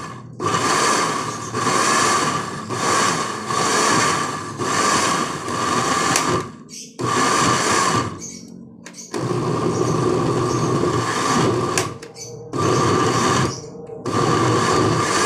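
Electric countertop blender puréeing a thick jackfruit mixture, switched on and off in short runs of about a second each. Past the middle it pauses for two or three seconds, then runs for about three seconds before going back to short runs.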